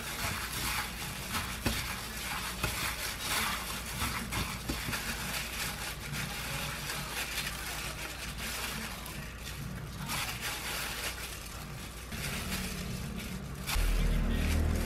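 Disposable plastic gloves crinkling and rustling as hands knead and squeeze a crumbled tofu rice-ball mixture into balls. A low hum grows louder near the end.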